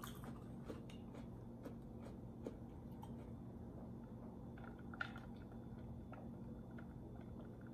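Quiet mouth sounds of drinking from a wine glass, sips and swallows heard as small scattered clicks, one sharper than the rest about five seconds in, over a low steady hum.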